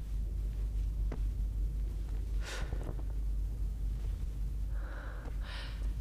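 A man asleep at a desk breathes out heavily once, a short breathy snort about halfway through, over a steady low room rumble. Soft rustling comes near the end.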